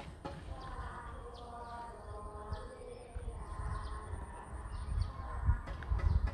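Outdoor ambience: a faint, drawn-out voice or chant with short bird chirps, and wind rumbling on the microphone, which grows stronger in the last couple of seconds.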